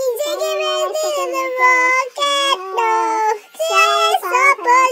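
High-pitched singing of a K-pop ballad line, sung in Korean in short phrases with brief breaks between them and no bass or drums to be heard.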